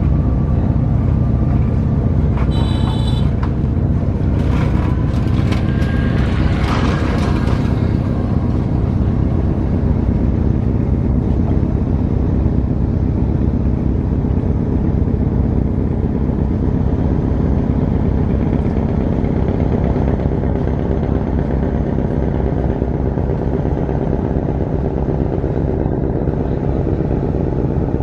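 A boat's engine running steadily with a low rumble. A brief high-pitched tone comes about three seconds in, and a few short rising tones and clicks follow over the next few seconds.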